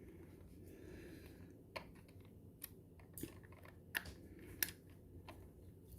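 Scattered light clicks and taps, about five sharper ones in the middle seconds, over a faint room hum: small plastic toy parts being handled.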